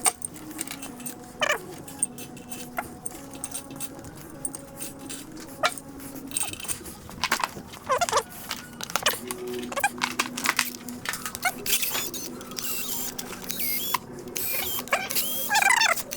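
Metal tools and engine parts clinking and knocking now and then while a cylinder head is fitted to an engine block, with short high squeaks here and there over a faint steady hum.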